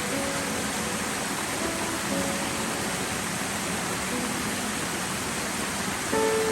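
Steady rushing of water from the koi pond's waterfalls, overlaid with soft background music of slow held notes that swells slightly near the end.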